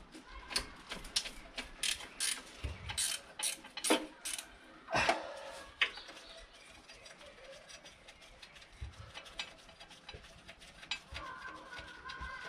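Spanner working bolts loose on a throttle-cable bracket on an engine's inlet manifold: quick, uneven metallic clicks like a ratchet for about the first six seconds, with one louder knock about five seconds in, then only faint tool handling.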